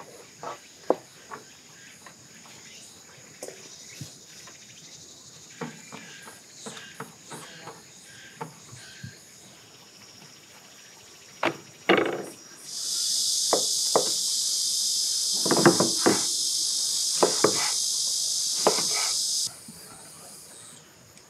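A cicada buzzing loudly and evenly for about seven seconds in the second half, then cutting off sharply, over a fainter steady insect drone. Scattered knocks and clinks of a knife and utensils on a wooden cutting board run through it.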